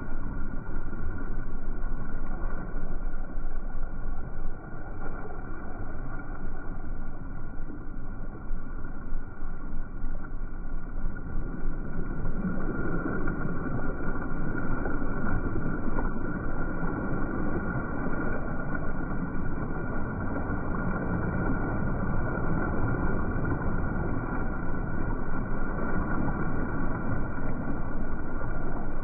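Steady rushing of water as a J/105 sailing yacht's bow wave breaks along the hull underway, a little louder about halfway through.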